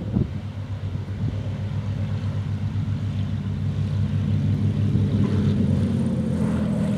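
Britten-Norman BN-2 Islander's twin engines and propellers droning steadily as it lands, growing louder as it touches down and rolls along the runway toward the microphone.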